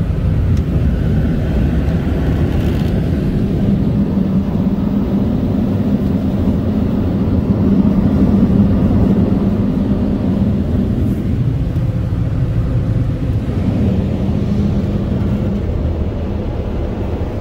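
Belanger air cannon car-wash dryers blowing: a loud, steady roar with a low hum, heard from inside the car's cabin as it passes beneath them.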